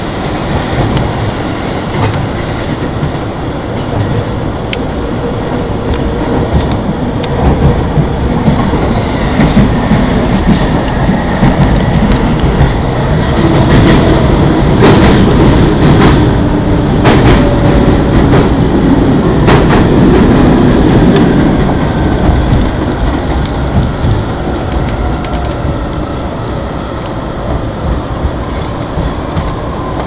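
Electric commuter train running on rails, heard from inside a carriage: a steady rumble with clacking wheels over rail joints and faint wheel squeal, louder in the middle.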